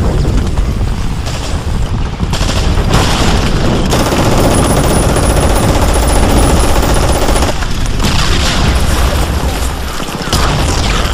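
Mountain bike clattering and rattling at speed down a rough downhill trail: a dense stream of jolts from the frame, chain and tyres hitting roots and ground.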